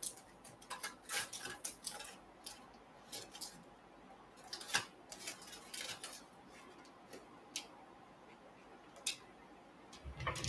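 Faint scattered clicks and light scrapes of trading cards and a plastic card sleeve being handled, fewer after the middle.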